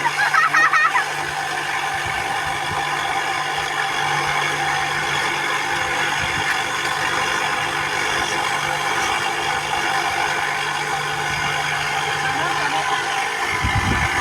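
A motor running steadily, with an even hum that does not change in pitch; a brief voice is heard in the first second.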